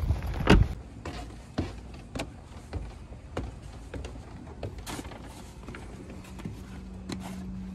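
A car door shuts with a loud thud about half a second in. Scattered footsteps and light knocks follow as an insulated delivery bag is carried onto a wooden porch deck and set down.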